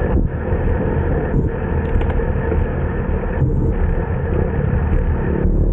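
Steady rumble of wind on the microphone with road noise from a moving bicycle, briefly easing a few times.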